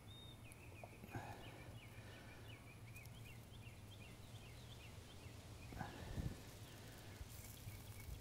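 Faint birdsong: a bird chirping a quick run of short, high notes, over a steady low hum. Two soft handling thuds, about a second in and near six seconds.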